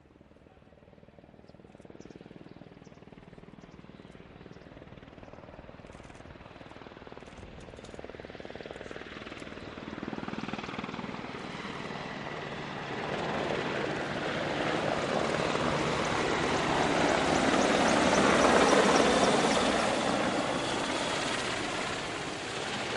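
A formation of MCH-101 (AgustaWestland AW101) three-turbine helicopters approaching low and passing over. The rotor and turbine noise builds steadily from faint to loud, peaks about nineteen seconds in, then starts to fade.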